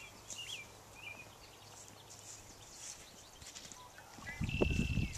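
Songbirds chirping in short calls over faint outdoor background noise. Near the end, a louder low rumbling noise comes in, with one held high whistle-like note over it.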